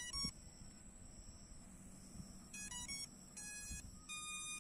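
DEERC D15 GPS drone powering up and playing its start-up chime: a short tune of electronic beeps, two quick notes at the start, a quick run of short beeps a little before three seconds in, then two longer tones near the end.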